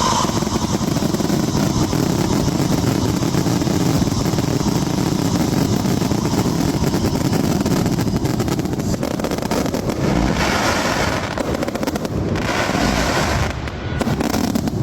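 Fireworks going off: a continuous dense crackling with a heavy low rumble, and fresh bursts swelling about ten and twelve seconds in.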